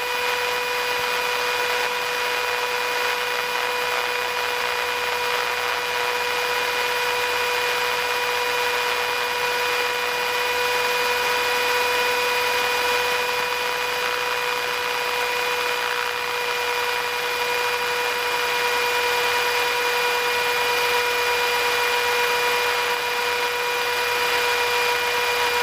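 Cessna 150's Continental O-200 four-cylinder engine and propeller running at a steady cruise setting, heard inside the cabin as an even drone with a steady whine on top.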